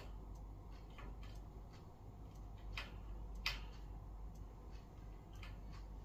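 Budgies making scattered soft clicks and short chirp-like ticks, two of them louder about three seconds in, over a low steady hum.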